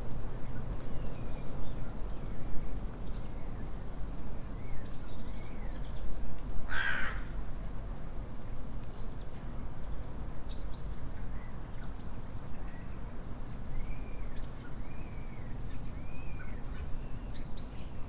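A crow gives one harsh caw about seven seconds in, while small birds make short, high chirps throughout over a steady low background noise.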